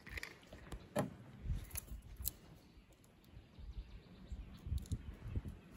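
Plastic kayak and paddle being worked through a shallow, snag-filled channel, the boat caught on the bottom or branches: a sharp knock about a second in, a couple of lighter clicks, and uneven low bumps and rustling.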